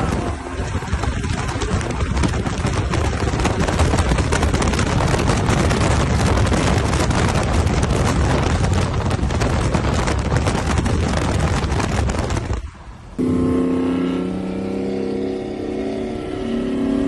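Cars running hard at speed in a street race, heard as a loud, even rush of engine and wind noise. It cuts off abruptly about thirteen seconds in. After that, an engine's steady drone continues, its pitch slowly falling.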